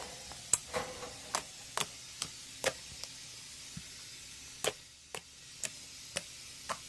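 About a dozen sharp clicks and pops at uneven spacing from freshly made Elmer's glue slime, activated with Sta-Flo liquid starch, being poked and squeezed by hand.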